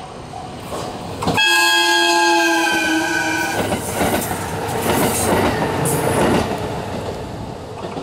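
KiHa 189 series diesel limited express train sounding its multi-tone horn for about two seconds, a little over a second in, its pitch sagging slightly as it nears. It then rushes close past with the clatter of wheels over rail joints, which fades away near the end.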